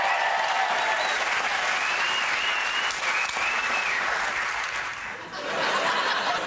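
Studio audience applauding, thinning out near the end.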